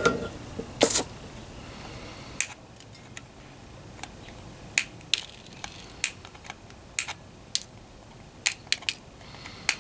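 Flush side cutters snipping the excess component leads off the underside of a freshly soldered circuit board: a dozen or so sharp clicks at an irregular pace, the loudest about a second in.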